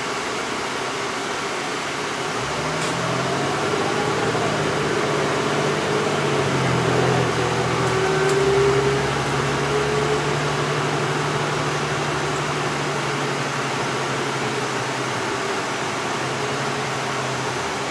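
Inside a moving city bus: steady engine and road noise. About two and a half seconds in, a low engine hum appears and grows louder, stepping in pitch as the bus gathers speed, then holds one steady pitch while cruising and drops away near the end.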